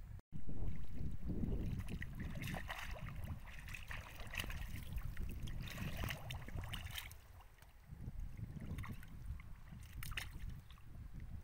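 Hands splashing and sloshing in shallow muddy water while grabbing at a fish, in bursts through the middle and again near the end, over a low rumble.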